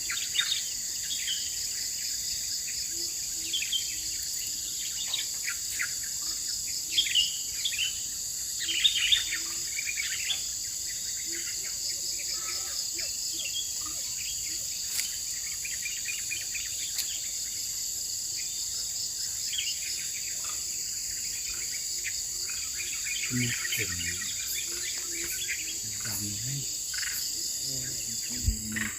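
Tropical forest ambience: a steady, high-pitched chorus of insects, with many short bird chirps, busiest in the first ten seconds.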